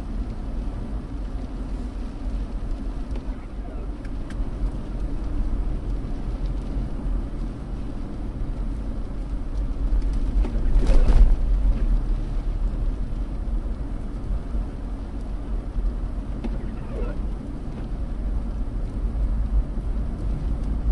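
Car driving on a snow-covered road, heard from inside the cabin: a steady low rumble of tyre, road and engine noise, with a brief louder rush about halfway through.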